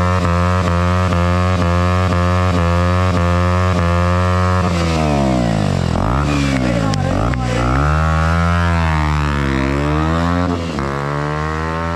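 KTM RC 200's single-cylinder engine through a newly fitted aftermarket Akrapovic dual exhaust, held at steady high revs, then pulling away with the pitch falling and climbing again several times. It gets somewhat quieter near the end as the bike moves off.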